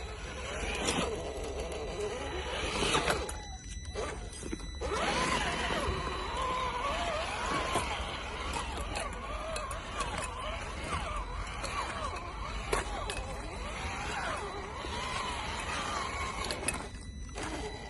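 Electric 1/10 scale RC crawler truck driving over forest ground: the motor and gears whine, rising and falling with the throttle, with scattered clicks and crunches from the tyres on the trail. The sound cuts out briefly twice.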